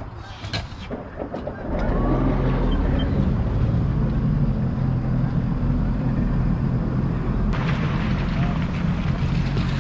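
Sea-Doo personal watercraft engine idling close by, a steady low hum that comes in about two seconds in; a hiss joins it near the end.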